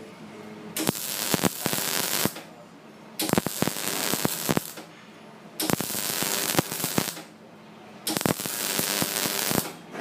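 MIG welding arc crackling and spitting in four evenly timed bursts of about a second and a half each, with pauses of about a second between them. The WIM 210 SEF single-phase welder is in spot mode, so the arc is cut off after a set time.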